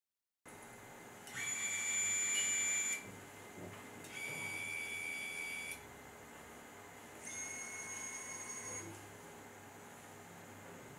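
Narishige motor-drive coarse manipulator whining as its motors drive the pipette holder under joystick control: three runs of a steady high-pitched whine, each about a second and a half, the first the loudest.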